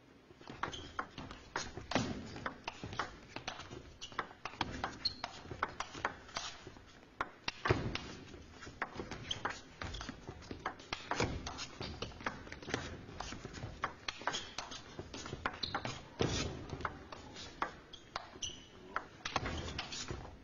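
Table tennis ball clicking off rackets and the table, a long run of sharp, irregularly spaced hits, about two to three a second.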